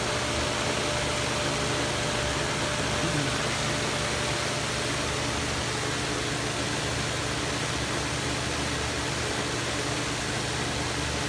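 Electric fan mounted in an attic hatch as a whole-house fan, running steadily: an even rush of air over a low, steady motor hum.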